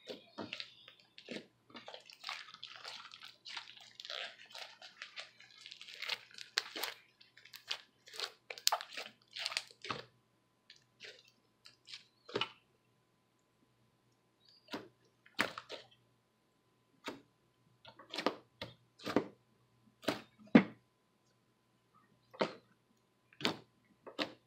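Thick glue-and-cornstarch slime being kneaded and squeezed by hand, making wet squelching, crackling and popping sounds. It crackles almost continuously for about the first ten seconds, then gives separate short squishes and pops every second or two.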